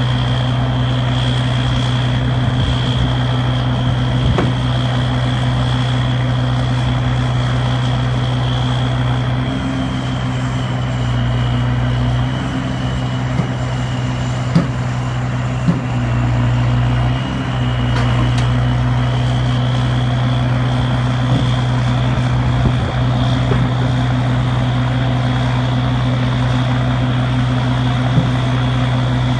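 RTR40 rotator tow truck running its engine steadily to drive the hydraulic boom as it rotates over the cab. A high whine over the engine hum dips in pitch partway through, then climbs back, with a few light clicks.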